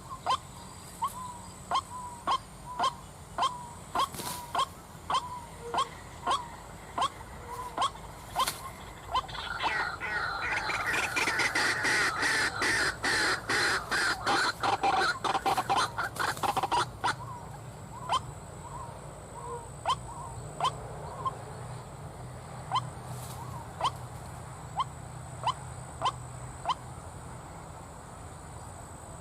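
White-breasted waterhen calling: a steady run of short repeated croaking notes, about two a second. For several seconds in the middle it breaks into a louder, harsh, dense chorus, then the repeated notes resume.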